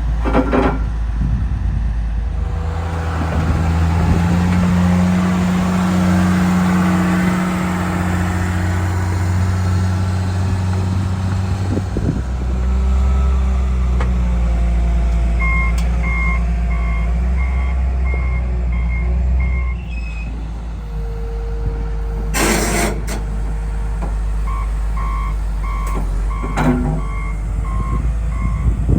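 Heavy construction machine's engine running steadily, with its reversing alarm beeping at about two beeps a second in two stretches, the first from about halfway through for some five seconds, the second for the last few seconds. Between the two comes a short loud burst of noise.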